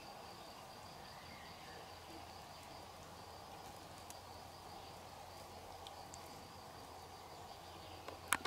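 Quiet waterside ambience with a steady, faint high-pitched insect chirring. Two sharp clicks near the end.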